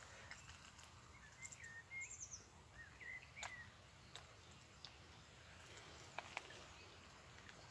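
Faint outdoor quiet with a few short bird chirps between about one and three and a half seconds in, and scattered faint clicks.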